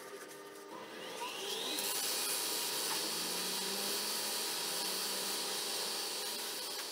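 Wood lathe spinning up, its pitch rising about a second in. It then runs steadily with a loud, even hiss as the base of a wooden vase is pressed against a small sanding disc held in a drill chuck on the spindle.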